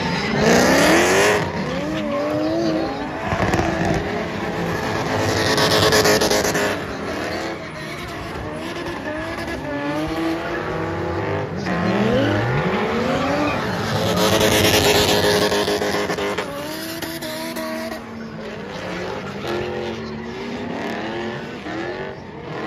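Drift cars' engines revving hard, their pitch swinging up and down again and again as the cars slide. Tyres screech in loud stretches near the start, about six seconds in and about fifteen seconds in.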